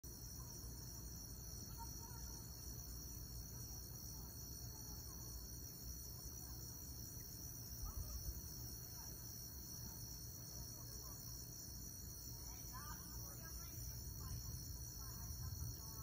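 Crickets trilling steadily at night, a high-pitched chorus of several overlapping tones, with faint short calls of other animals and a low rumble underneath that swells briefly about eight seconds in.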